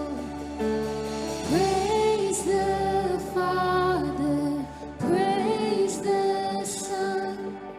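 A slow worship song: sung phrases over sustained instrumental chords, with the voice coming in about a second and a half in and again about five seconds in.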